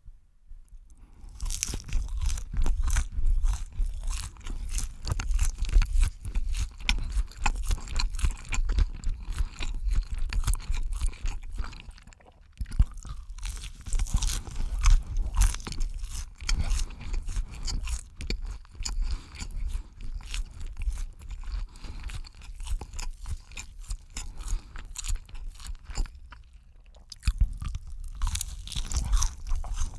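Close-miked crunchy chewing and biting, a dense run of crisp crunches that starts about a second in, with a brief pause near the middle and a quieter stretch near the end.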